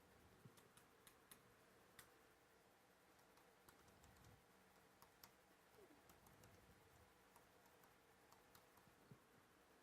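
Near silence with faint, scattered clicks of typing on a computer keyboard.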